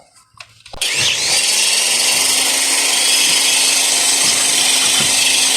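Electric power tool switched on about a second in, then running steadily at full speed with a high-pitched whine over a low hum.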